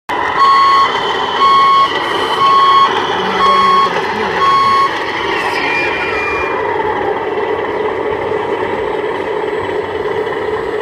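Truck reversing alarm beeping five times, about once a second, over a steady running noise. The beeps stop about five seconds in and the running noise carries on.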